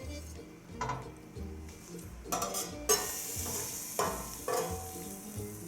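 Utensil scraping and stirring in a frying pan of beef stir-fry strips and melted cheese, with a few sharp scrapes and sizzling that starts about halfway through. Background music runs under it.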